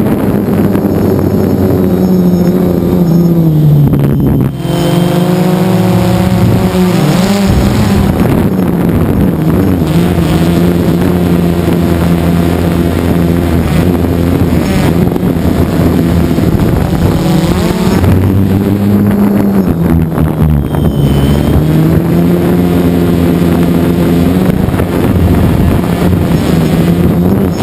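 DJI Phantom 2 quadcopter's electric motors and propellers buzzing loudly, heard from on board the drone. The pitch of the buzz drops about three seconds in, wavers briefly, and climbs again later as the motors change speed while the drone manoeuvres.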